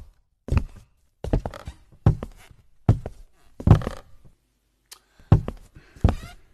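A slow, regular series of heavy thuds, about one every 0.8 seconds, with a short pause a little past the middle. In the haunted-house skit these are the unexplained noises taken for a ghostly 'roommate'.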